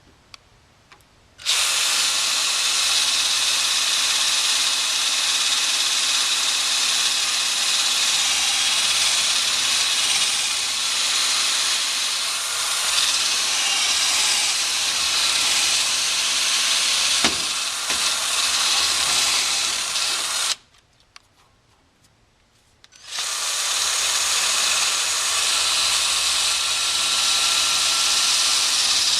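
Electric drill boring out the old wooden handle stub from the eye of a forging hammer head: it runs steadily, stops for a couple of seconds about two-thirds of the way through, then starts again. One sharp knock sounds partway through.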